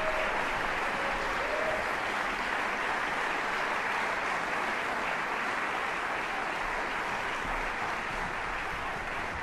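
Audience applauding steadily as the performers take their bow.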